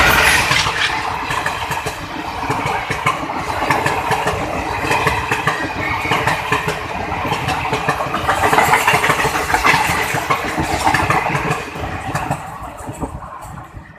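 A WDM3A ALCO diesel locomotive and passenger coaches running past, with the engine's sound and a steady clatter of knocks from the wheels. It fades away in the last couple of seconds.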